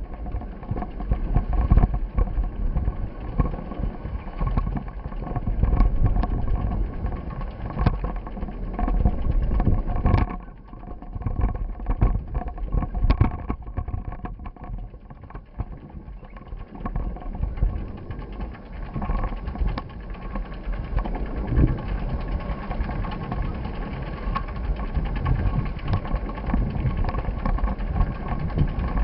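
Rumbling, gusting wind-and-road noise of a moving ride on a mounted action camera's microphone, with a faint steady hum and a few sharp knocks; it eases off about ten seconds in and builds again from about seventeen seconds in.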